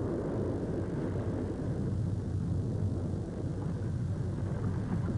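Freight gondola cars rolling along the track, a steady rumble with a low hum underneath.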